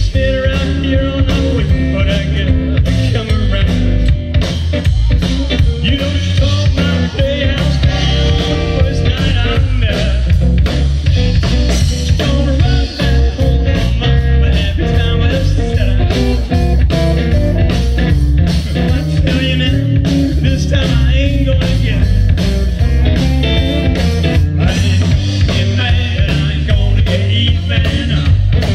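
A live blues band playing through a PA: electric guitar, electric bass and drum kit, with a saxophone playing lead.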